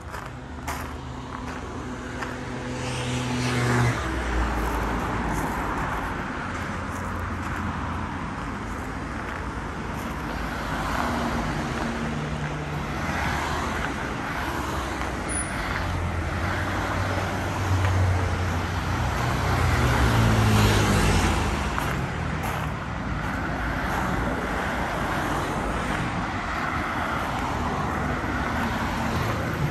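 Street traffic: cars pass close by one after another, engines and tyres rising and falling. The loudest pass, about two-thirds of the way through, has an engine note that climbs in pitch.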